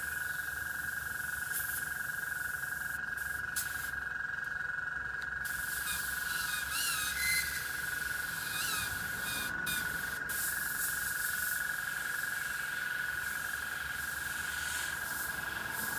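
Airbrush hissing steadily as it sprays paint, over a constant high-pitched whine. A few faint chirps come about halfway through.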